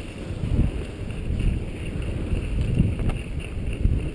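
Wind buffeting an action camera's microphone as its wearer slides down a groomed ski slope: a low rumble that swells and drops in uneven gusts.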